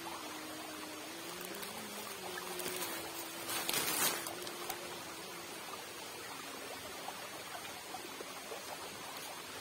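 Steady rush of fast-flowing water in a concrete irrigation channel, with a faint steady hum in the first half. About three and a half seconds in comes a short, louder swish of noise, the loudest moment.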